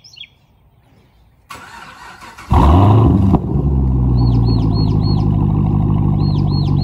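2015 Chevrolet Camaro SS's 6.2-litre V8, straight-piped with mufflers and resonators deleted, starting up: about a second of starter cranking, then it catches with a loud rev flare and settles into a steady, loud idle. Birds chirp in short repeated calls in the background.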